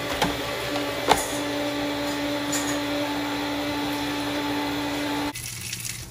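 Electric meat slicer running with a steady motor hum, with a couple of sharp knocks in the first seconds, then switched off abruptly about five seconds in.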